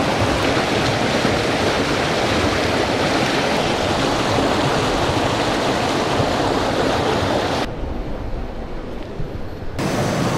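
Whitewater of a river rapid rushing close by, a loud, steady wash of water noise. About eight seconds in it cuts to a quieter, duller noise.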